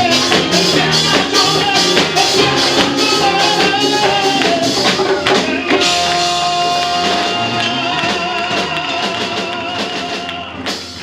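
Live worship song with a singer over a band and an even percussive beat. About six seconds in, one long note is held with a slight waver, and the music gets quieter toward the end.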